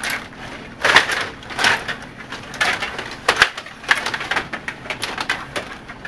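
Stiga table hockey game in play: irregular clacks and rattles from the rods, the plastic players and the puck on the table.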